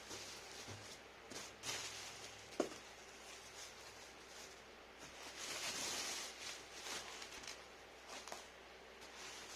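Packaging being handled: soft rustling in a couple of swells, with one sharp click about two and a half seconds in.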